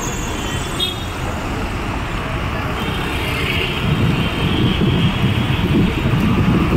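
Road traffic on a wet city street: cars and motorcycles passing, a steady noise that grows louder about four seconds in as two-wheelers come close.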